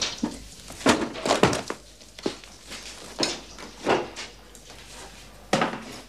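A wooden door being pushed and banged in a small room: a string of irregular knocks and thuds, several close together in the first two seconds and one more near the end.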